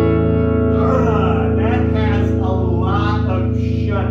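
Electric guitar played with a dirty, overdriven tone through the Sound Projector, a reclaimed tube amp conversion. A low chord rings on while higher notes waver up and down over it.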